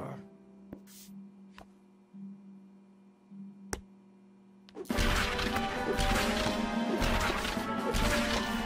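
Cartoon soundtrack: a low steady hum with a few soft clicks and one sharp click. About five seconds in, loud, busy music with hard hits starts suddenly.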